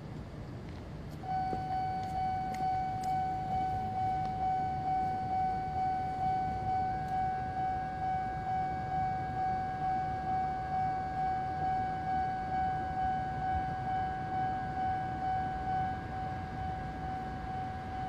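Japanese railway level crossing warning bell, starting about a second in. It is an electronic tone ringing in an even pulse of just under two beats a second, the crossing warning that a train is approaching, and it drops a little in loudness near the end.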